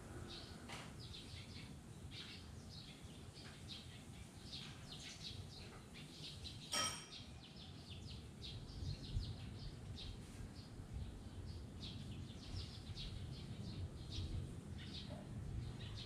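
Small wild birds chirping off-screen in many quick, high, short notes over a low background rumble. About seven seconds in, one brief, louder pitched call stands out.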